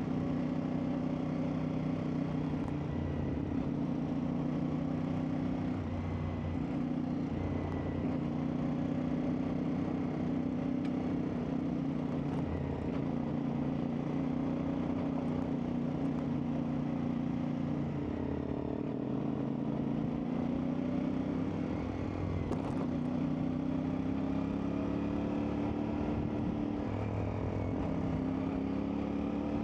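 CFMoto 450MT's parallel-twin engine running under way off-road, its note rising and falling with the throttle. The pitch drops about eighteen seconds in and climbs again toward the end.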